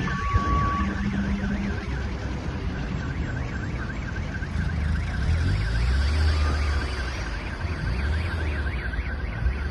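Car alarm sounding a fast, continuous warbling tone over a steady low rumble, with a sharp knock about half a second in.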